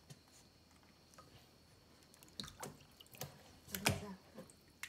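Bath water splashing and dripping in a plastic basin as a wet Pomeranian puppy is handled and lifted. There are a few short splashes in the second half, the loudest about four seconds in.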